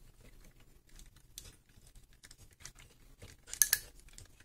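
Hard plastic parts of a transforming toy robot clicking and rattling as they are handled and rotated into place. There is a quick cluster of louder clacks about three and a half seconds in.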